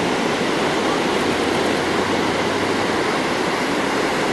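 Ocean surf from hurricane swell breaking toward the shore, a steady rush of whitewater with no pauses.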